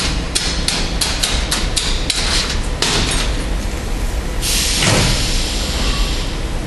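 Aluminium die-casting machine and robotic ladle at work: a quick run of sharp metallic knocks, about three a second, for the first two seconds, then a loud burst of hissing about four and a half seconds in, over a steady low machine rumble.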